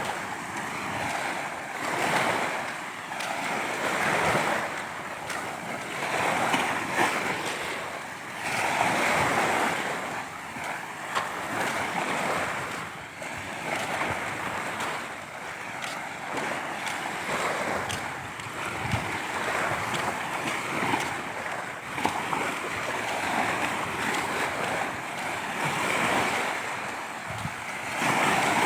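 Sea waves breaking and washing on the shore, swelling and falling every few seconds, with some wind on the microphone.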